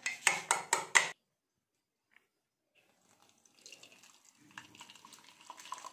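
A quick run of sharp knocks, about four a second, that cuts off a second in. After a short silence, milky coffee trickles faintly through a metal strainer into a mug.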